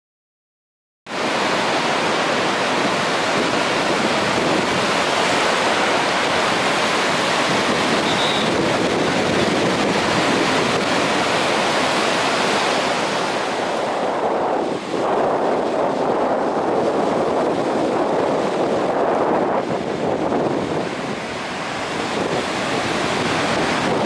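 Ocean surf breaking and washing on a sandy beach, a steady rushing noise mixed with wind noise on the microphone. It starts abruptly about a second in.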